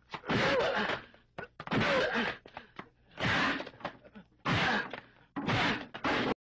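Fist-fight sound effects from an old action film: a string of about six heavy punch hits, each a short loud burst. The sound cuts off abruptly near the end.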